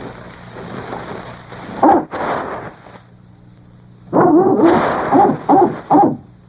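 Cartoon dog barking: one bark about two seconds in, then a quick run of four or five barks between about four and six seconds, over a steady hiss in the first two seconds.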